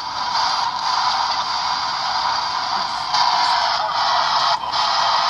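Hacked Radio Shack scanning radio (a 'shack hack' ghost box) sweeping the band, giving a steady loud static hiss with a few brief breaks and shifts as it jumps between frequencies, about three seconds in and again near the end.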